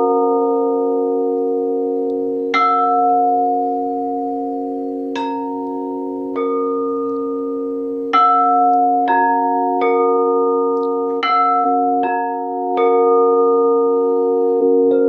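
Several quartz crystal singing bowls struck one after another, each strike sharp and then ringing on, so that their tones overlap in a sustained chord. About nine strikes, irregularly spaced every second or two, most closely bunched from about eight to thirteen seconds in.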